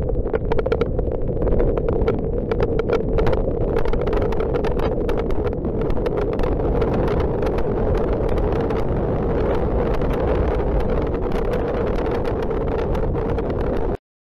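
Steady rush of cyclone wind and heavy rain buffeting the microphone on a moving vehicle, with a dense patter of raindrop ticks; it cuts out abruptly near the end.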